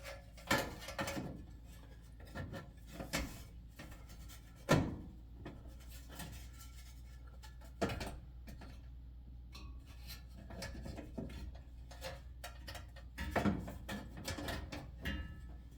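Knocks, clicks and scraping as the back cover is fitted over the electric range's display control panel, with the loudest knock about five seconds in.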